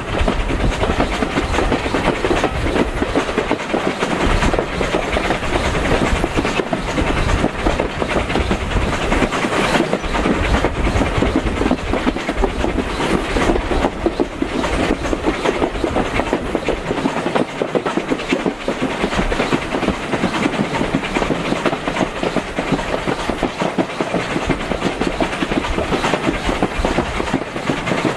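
Steam-hauled heritage railway carriage running along the line, its wheels rumbling and clattering steadily over the rail joints.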